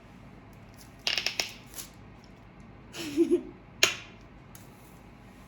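Clicks and clatter of slime-making things being handled: a quick run of small clicks about a second in, a brief rustle, and a single sharp click near four seconds.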